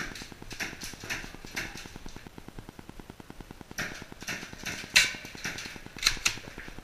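Steady, rapid buzzing interference from a GoPro Hero 3's Spotmeter running, with irregular sharp clicks and taps over it, the loudest about five seconds in.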